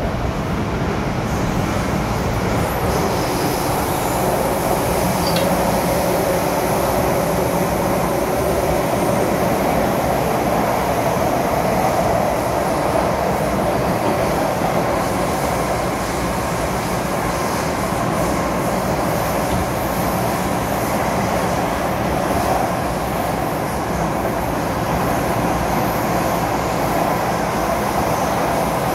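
MTR M-Train electric multiple unit running along the track, heard from inside the passenger car: a steady, unbroken rumble of wheels and running gear.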